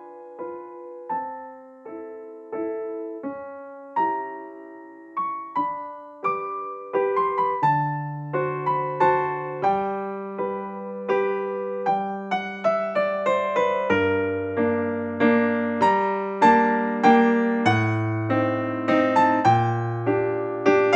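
Background piano music, a light melody of single struck notes; a bass line comes in about seven seconds in and the playing grows fuller.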